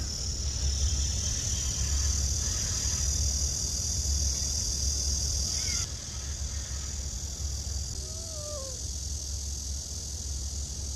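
A cat meows, a short falling call about eight seconds in, with a fainter call about six seconds in. A steady hiss and low hum lie under the calls.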